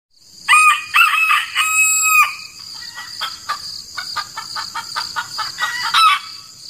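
Rooster crowing: one broken cock-a-doodle-doo about half a second in, followed by a run of short, rapid clucks. A steady high-pitched hum sounds underneath.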